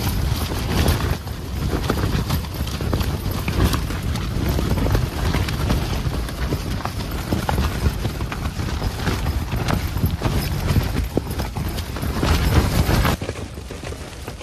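Strong gusty wind buffeting a tent, the fabric flapping and snapping rapidly over a heavy wind rumble on the microphone. The rumble drops away sharply near the end.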